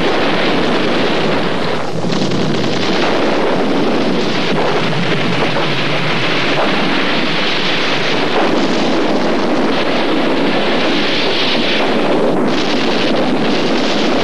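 Loud, steady rushing roar of a demolition blast's smoke and debris cloud, with wind buffeting the microphone.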